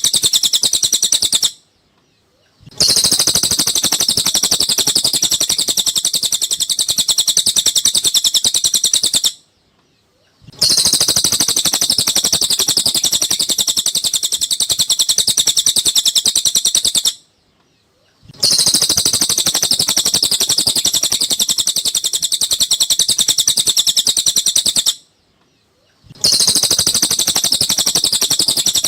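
Recorded cililin bird song: dense, rapid, high-pitched chirping in long unbroken stretches of about seven seconds, each cut off by a silence of about a second, three times, as the recording loops.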